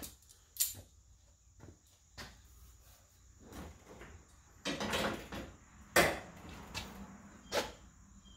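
Scattered clicks and knocks of a steel tail panel being pushed and shifted into place on a car's rear body and clamped with locking pliers. There is a cluster of knocks near the middle, and the loudest single knock comes about six seconds in.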